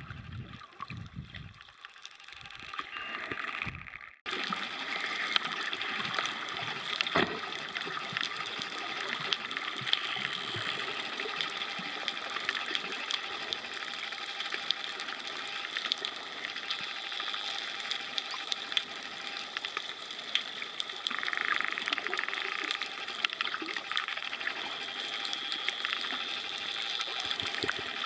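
Underwater sound among a pod of dolphins: a steady water hiss scattered with many short, sharp clicks. The first four seconds are quieter and rumbling, then the sound changes abruptly to the dense clicking hiss.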